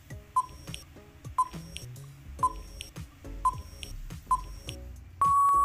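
Quiz countdown-timer beeps: five short electronic beeps about a second apart, then a long, louder beep starting about five seconds in as the count runs out, over background music.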